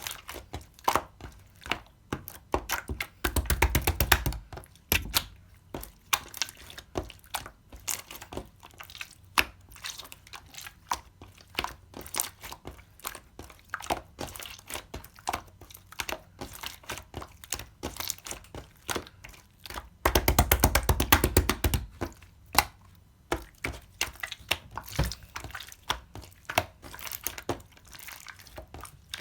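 Clear slime being pressed, folded and stretched by hand, giving wet clicks and pops as air pockets burst. There are two spells of fast, louder squishing clicks, about three seconds in and again about twenty seconds in.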